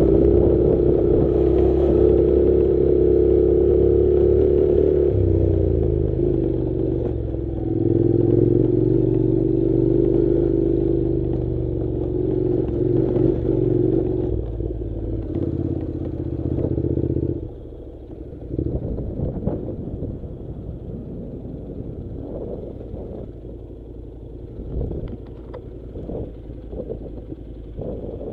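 Honda NC700 parallel-twin motorcycle engine running under steady throttle, its pitch dipping and rising again about six seconds in. About seventeen seconds in it drops off to a quieter low run, with scattered clatter and knocks over the rest.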